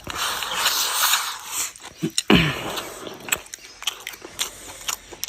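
A person biting and chewing food close to the microphone, with crunching and a run of short wet clicks and smacks. There is a brief falling voiced "mm" about two seconds in.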